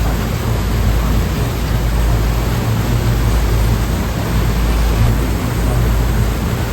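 Steady wash of sea waves with a deep rumble underneath and a slight, slow rise and fall in level.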